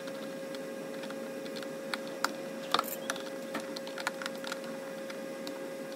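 Scattered small clicks and taps of a screwdriver and screws being handled against a plastic sprinkler controller housing, over a steady hum.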